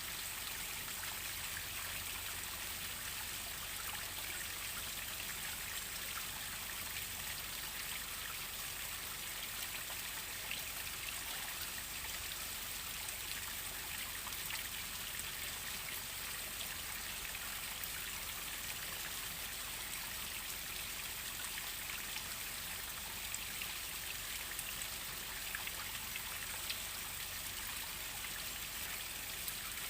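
Waterfall: a steady rush of falling water, with many small splashing drops.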